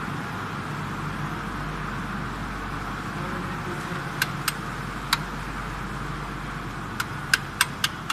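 An engine running steadily at idle. Sharp, brief clicks join it from about four seconds in, coming more often near the end.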